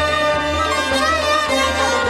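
Instrumental passage of Kashmiri Sufi music: a melody on a bowed string instrument, with sliding pitch bends, over a low drone and a light percussion beat.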